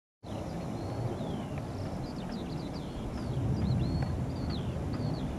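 Outdoor field sound cutting in just after the start: a steady low rumble with birds singing over it, many short chirps and whistles.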